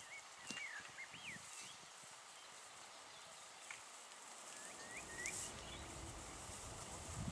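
Sika deer cropping grass, soft low knocks and tearing in the first couple of seconds, with a songbird whistling short gliding phrases near the start and again about five seconds in. A low rumble comes up in the second half.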